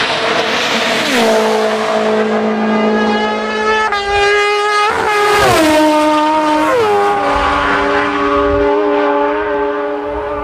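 Racing engines passing at high speed on a closed road. Each engine note drops in pitch as the vehicle goes by, three times.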